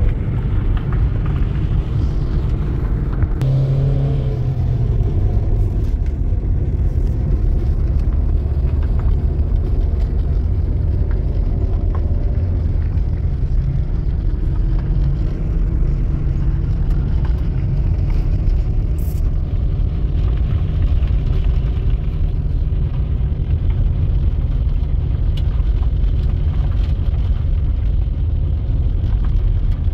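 Motor vehicle running with a steady low rumble.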